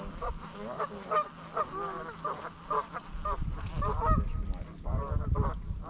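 Geese honking over and over, short calls following each other about three a second.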